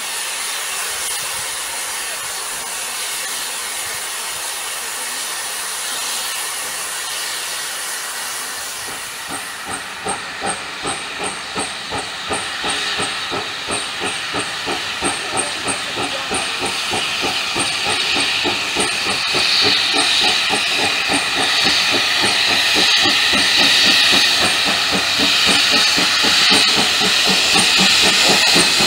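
FS 740 steam locomotive hissing steadily at a standstill, then about a third of the way in it starts to chuff as it gets under way. The exhaust beats come regularly, grow quicker and louder, and steam hisses from around the cylinders.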